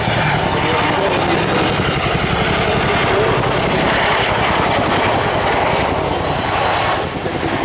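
A Boeing CH-47 Chinook (RAF HC4) tandem-rotor helicopter flying past, loud and steady, its two rotors beating rapidly over the engine noise; it eases off slightly near the end.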